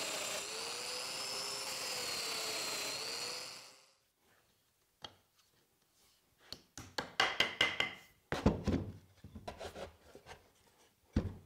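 Festool Domino joiner's motor running for about four seconds while it cuts a mortise, its pitch dipping and rising with the plunge, then shutting off. After a short pause come scattered light knocks and clatter of wooden parts being handled and fitted together.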